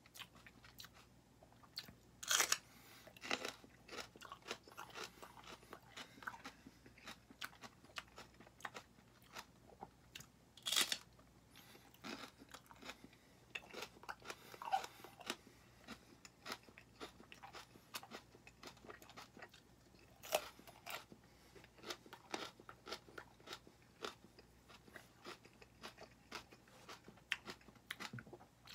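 A person chewing raw serrano peppers: a steady run of crisp crunching and wet chewing, with three louder bites spread through.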